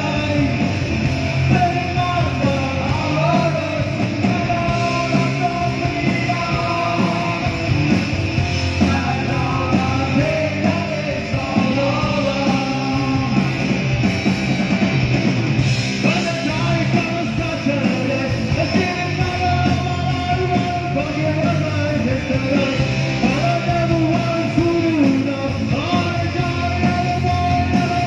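Live punk rock band playing a song: electric guitar, drums and a singer on vocals.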